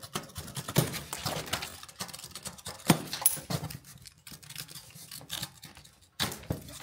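Plastic box strapping being cut with a utility knife and pulled off a cardboard box: scraping, rustling and scattered clicks, with a sharp click about three seconds in.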